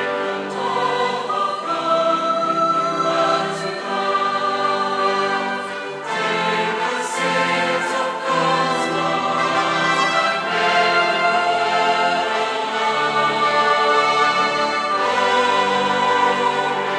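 Choral music: a choir singing long held notes over instrumental accompaniment.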